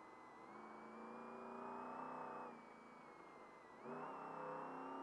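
Trophy truck engine heard from inside the cab, coming on the throttle twice: it rises in pitch for about two seconds, drops back, then pulls again about four seconds in. A thin steady high whine runs under it.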